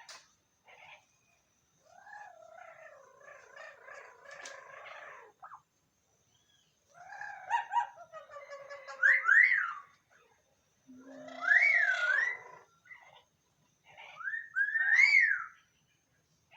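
Pet parrots vocalising: a stretch of soft chattering, then three loud whistled calls, each sweeping sharply up and down in pitch, about three seconds apart.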